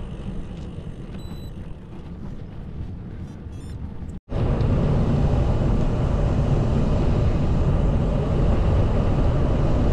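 Wind rushing over the microphone on a moving bicycle. For the first few seconds it is a moderate, even rush with a brief run of light ticks. After a sudden break about four seconds in, it becomes a much louder, steady, low wind buffeting.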